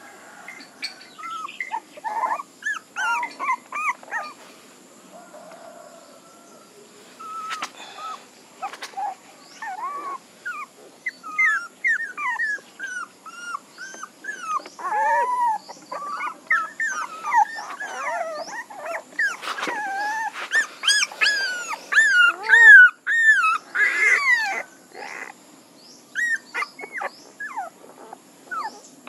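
Young puppies whining and crying: many short, high-pitched calls that rise and fall, overlapping one another and busiest and loudest in the second half.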